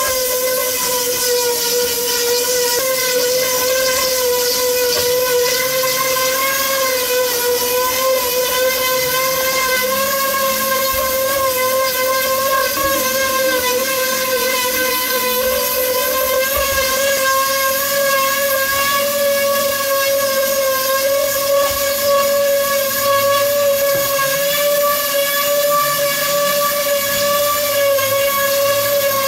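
Electric power tool motor running continuously at a constant speed, a high steady whine over a hiss.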